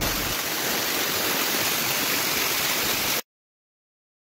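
A loud, steady hiss of even noise, like heavy rushing water or static, that cuts off abruptly a little over three seconds in, leaving dead silence.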